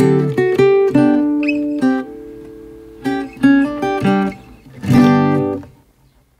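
Background music on acoustic guitar, plucked notes and strummed chords, ending on a final strummed chord about five seconds in that rings out and fades to silence.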